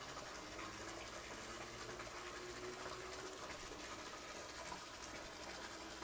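Faint, steady sound of moving water in a shallow plastic koi tub.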